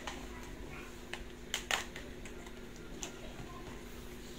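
Quiet room tone with a steady low hum, broken by a few faint clicks: two close together about a second and a half in and one more around three seconds.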